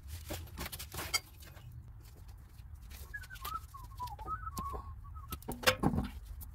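Scattered knocks and clicks from hands working at a car's front wheel, the loudest coming about six seconds in. A bird chirps in short warbling notes in the middle.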